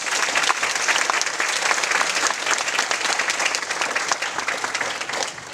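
Audience applauding: many people clapping steadily, the applause fading away near the end.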